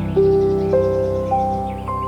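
Soft new-age style music: slow sustained notes stepping upward about every half second over a steady low drone, with faint bird chirps behind it.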